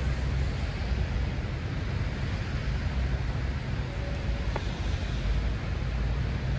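Steady outdoor street noise: a heavy, uneven low rumble of traffic mixed with wind buffeting the microphone.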